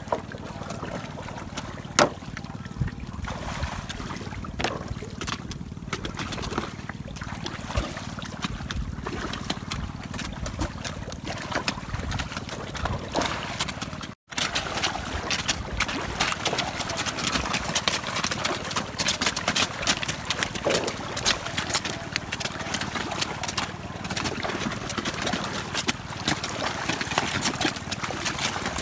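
Giant snakeheads splashing and thrashing at the water surface of a net cage as they take small fish tipped in as feed, a dense, constant churning of splashes. A sharp knock about two seconds in, and the splashing grows denser after a brief break about halfway.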